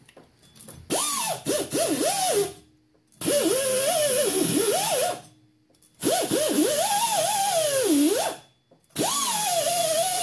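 Handheld power tool spinning a purple abrasive disc against a rusty wheel-hub flange to grind the rust off. It runs in four bursts of about two seconds each, and its motor pitch wavers up and down as the disc is pressed on, over a steady scraping hiss.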